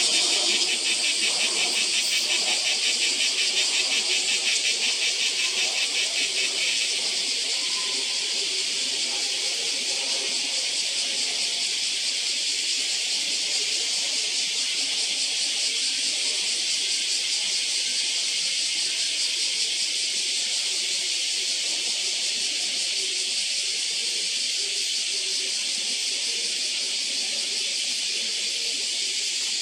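Steady, shrill chorus of summer cicadas, pulsing rapidly for the first several seconds and then running on as an even, high hiss.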